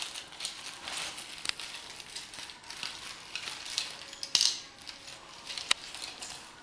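Hands handling a radio-controlled glider and its parts: rustling and crinkling with scattered small clicks and taps, the two sharpest clicks a little past the middle.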